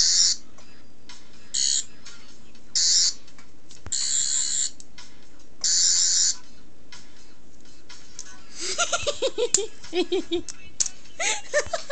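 Toy Doctor Who sonic screwdriver sounding its high electronic buzz in five short bursts. Then a person laughs in quick repeated bursts over the last few seconds.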